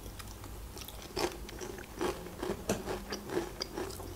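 Paprika Pringles potato crisps being chewed with the mouth close to the microphone: a string of short, irregular crunches.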